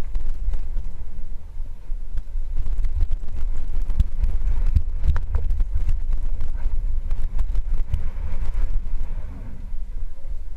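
Wind buffeting on a helmet-mounted camera's microphone, a heavy low rumble, with many rattles and knocks from a downhill mountain bike rolling fast over rocky dirt trail.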